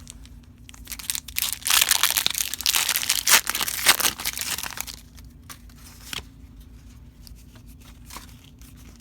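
Foil wrapper of a Pokémon booster pack being torn open and crinkled, loudest for a few seconds from about a second and a half in, followed by lighter rustling as the cards are handled.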